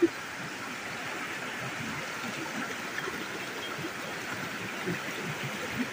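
Rocky mountain stream running over stones: a steady hiss of flowing water, with a brief knock right at the start.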